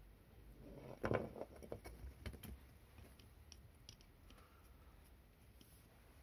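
Brief rustling and scratching on a cloth cover, loudest about a second in, followed by a few faint sharp clicks.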